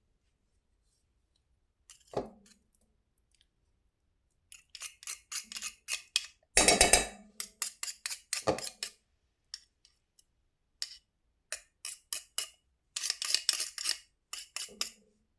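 A utensil mashing a banana in a bowl, clicking and tapping against the bowl in irregular runs, with one heavier knock a little after six seconds in.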